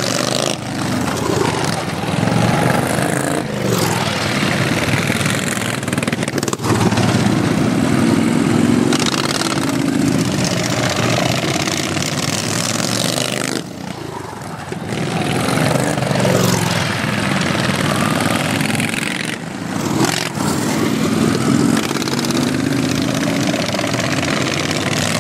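Modified racing lawn tractors' small engines running hard as they race, their pitch repeatedly rising and falling with the throttle and with the tractors passing, in swells of loudness with a brief drop about halfway through.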